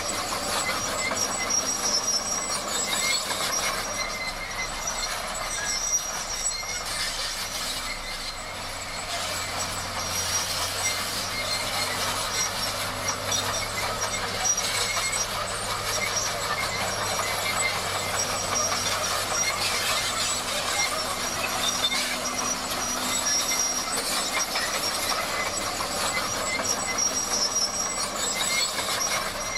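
Bulldozer working: a steady engine drone under continuous metallic clanking and grinding from its steel crawler tracks, with a thin high squeal that comes and goes.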